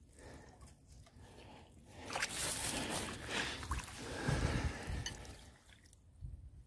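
Water sloshing and mud squelching as hands work under the surface of shallow pond water, uneven, from about two seconds in until about five and a half seconds.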